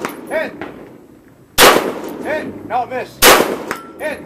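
Two AR-15 rifle shots, about a second and a half apart, each followed about three quarters of a second later by the short ringing ding of the bullet striking a distant steel target.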